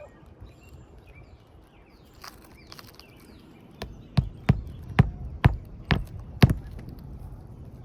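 About seven sharp hammer blows in quick succession, roughly two a second, starting about four seconds in, struck while working asphalt shingles on a roof.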